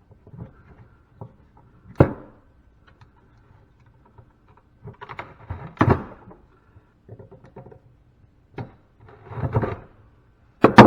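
Intermittent knocks and clatter of hand tools on metal as a stuck washer is worked at on a scrapped appliance: a sharp knock about two seconds in, a short run of clatter in the middle and a sharp strike near the end.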